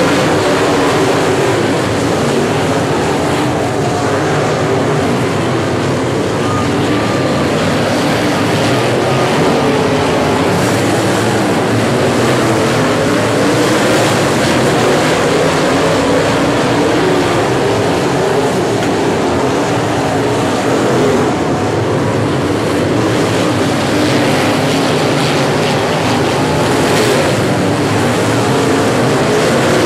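Engines of several dirt-track modified race cars running hard under racing, a continuous loud blend that wavers in pitch as the cars circle the track.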